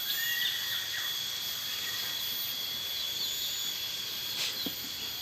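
Outdoor rural ambience: a steady high insect trilling, cricket-like, over a faint hiss, with a few faint short chirps and a brief click near the end.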